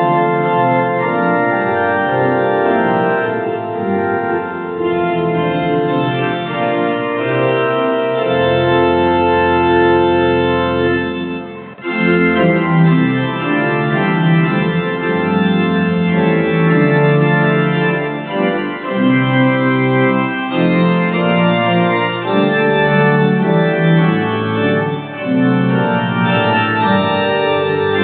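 Organ music: sustained chords held and moving from one to the next, with a short break about twelve seconds in.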